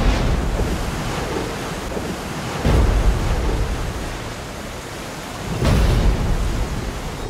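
Storm at sea: a steady rush of wind and churning waves, with three heavy surges of water breaking against a ship's hull, about three seconds apart.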